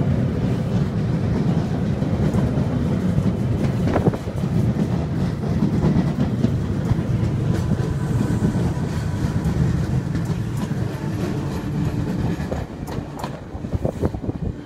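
Z 5300 electric multiple unit ('petit gris') running past at close range: a steady rumble of wheels on rail with occasional clacks over the rail joints. The sound fades near the end as the rear of the train pulls away.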